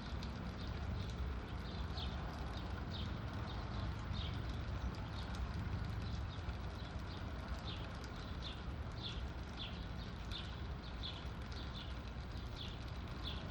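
A small bird giving short, falling chirps over and over, roughly one a second, over a steady low rumble and faint rapid ticking.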